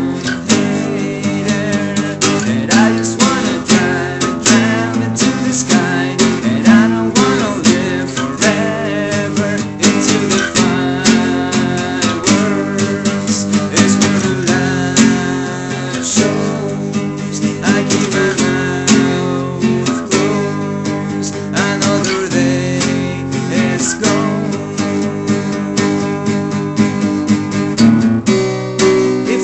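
Acoustic guitar played steadily, with strummed chords and picked notes.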